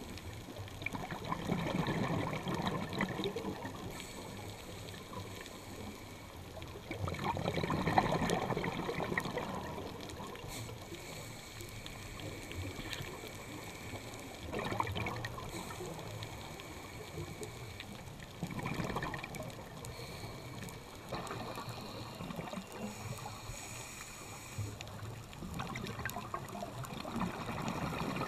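Scuba regulator exhaust bubbles heard underwater: a bubbling rush with each exhaled breath, about every five seconds, six times.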